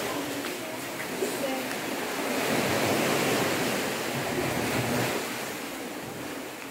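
Sea waves washing onto the shore, the wash swelling a couple of seconds in and ebbing away near the end.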